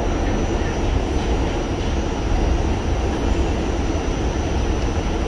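New York City subway car running, heard from inside the car: a steady rumble with a thin high whine held above it.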